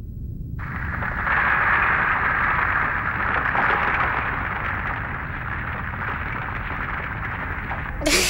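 Sound effect of a steady, loud rumbling roar with a hiss on top, the sound of rubble and ground collapsing after an explosion. Near the end a short strained voice sound starts.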